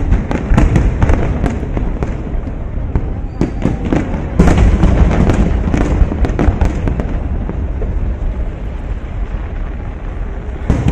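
Aerial fireworks shells bursting in quick succession: a dense run of booms and sharp cracks over a continuous low rumble, with the heaviest burst about four and a half seconds in.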